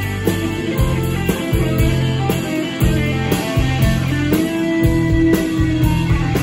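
Live rock band playing an instrumental passage: electric guitar lead over bass and drums, with one guitar note held for about a second a little past halfway.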